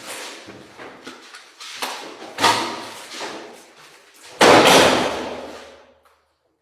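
A series of knocks and rattles, building to a loud slam-like bang about four and a half seconds in that dies away over a second or so, then cuts off suddenly.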